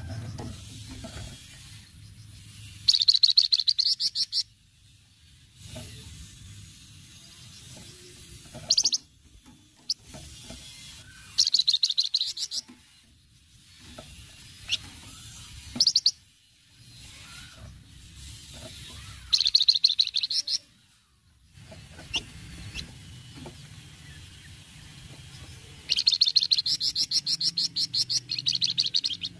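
Sunda pied fantail (flamboyan) giving its rapid rattling chatter, the 'cretetan' song. It comes in four bursts of fast ticking notes, the last one longer, with a few single sharp notes in between.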